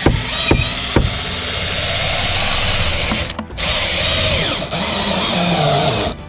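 Cordless drill boring into a wooden strip: a few short trigger bursts, then two long runs with a brief stop about three and a half seconds in, the motor's pitch sagging under load near the end.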